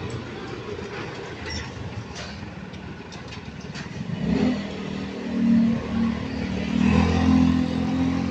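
Street traffic with motorcycle and tricycle engines running. About four seconds in, a nearby engine grows louder with a steady low hum as a minibus and a motorcycle pull past close by.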